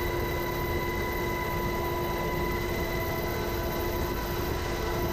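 Cabin noise of a UH-60 Black Hawk helicopter in flight with the door open: the twin turboshaft engines and rotor drone steadily under a rush of wind, with several steady high tones.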